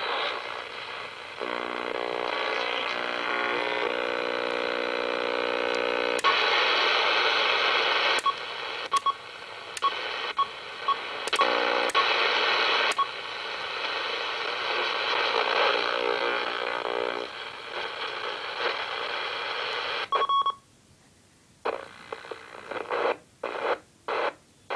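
Shortwave radio receiver being tuned across the bands: static and hiss with buzzing carrier tones, and a run of short, evenly spaced beeps in the middle. Near the end the audio cuts out and returns in choppy bursts.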